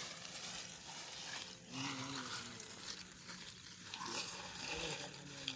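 Lumps of charcoal shifting, clinking and crunching as hands rake and spread them into a level bed in a sand pit.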